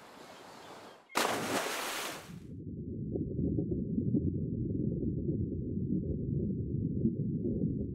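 A sudden loud splash into water about a second in, then a steady low, muffled rumble of water heard underwater.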